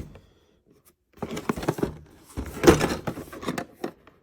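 Short knocks and rattles of plastic model kit parts and the kit box being handled, in two bursts, with the loudest knock a little under three seconds in.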